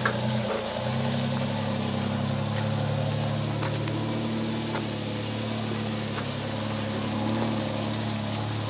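A GQ Nissan Patrol 4x4's engine running at steady low revs as it crawls up a rutted dirt track, a continuous even hum.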